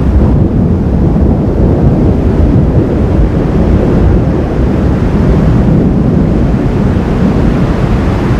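Wind buffeting the camera microphone during a thunderstorm: a loud, steady low rumbling noise with no distinct claps.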